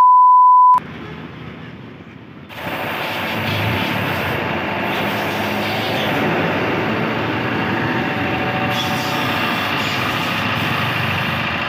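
A loud, high, steady test-tone beep lasting under a second, then, from about two and a half seconds in, a Bajaj Pulsar 150 motorcycle's single-cylinder engine running steadily.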